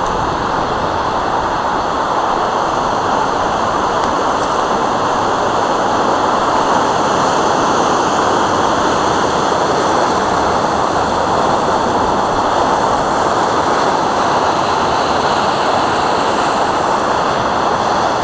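Loud, steady rush of a waterfall on a mountain brook, a dense unbroken roar of falling water that the speakers put down to snowmelt.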